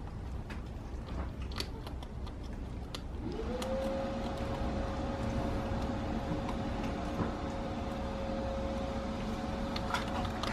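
A machine hum that comes up quickly about three seconds in and then holds one steady pitch, over a low rumble, with faint scattered clicks and rustles before it starts.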